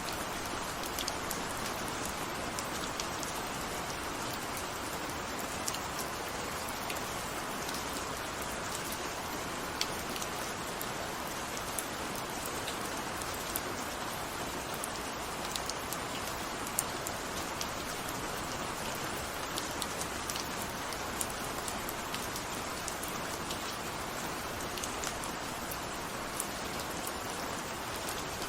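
Steady rain falling, an even hiss with many scattered sharp drop ticks throughout.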